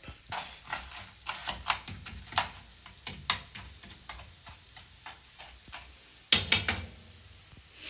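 Corn kernels heating in oil and sugar in a small pan, sizzling with scattered sharp cracks at irregular intervals. About six seconds in there is a louder, brief clatter of the pan.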